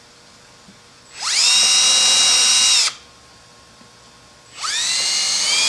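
Cordless drill boring binding screw holes into a ski through a drilling jig. It spins up with a rising whine and holds a steady pitch for under two seconds, stops, then starts a second hole about a second and a half later.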